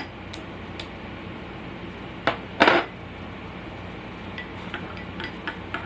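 Spoon and bowl clinking in the kitchen: a few light taps, a louder clatter about two and a half seconds in, then small ticks near the end.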